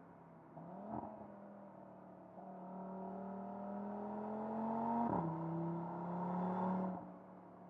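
Audi RS 3's turbocharged 2.5-litre five-cylinder engine accelerating hard. There is a short rev about a second in, then a long climb in pitch that drops suddenly at a gear change about five seconds in. It climbs again before the note falls away as the throttle comes off near the end.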